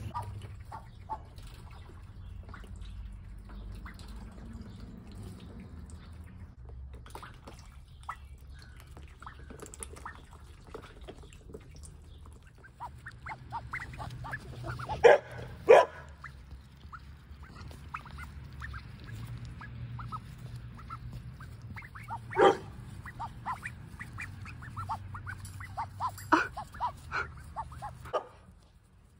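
Young ducks calling in a run of short quacks and peeps, with a few louder quacks about halfway through and again later.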